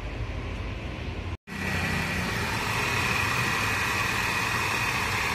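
Mercedes-Benz C280 W204 V6 idling, then, after a cut about a second and a half in, heard close at the accessory belt drive: a loud, steady high whine from the belt tensioner pulleys over the idle. The mechanic takes it for a bad tensioner, calling its sound very loud.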